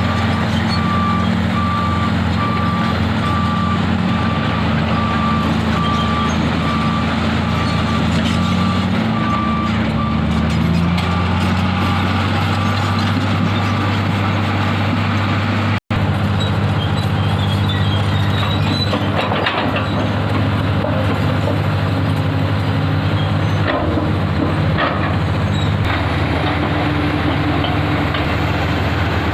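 Heavy diesel tipper truck engine running steadily, with a reversing alarm beeping at an even pace through roughly the first half. After a brief break the engine carries on, with scattered clanks and knocks.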